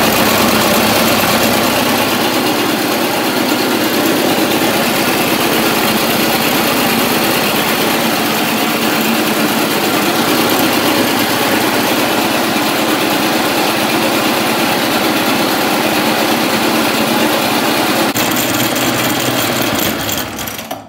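Briggs & Stratton small single-cylinder engine on a restored Suffolk Colt cylinder lawnmower running steadily and smoothly after starting on the first pull. The sound falls away sharply near the end.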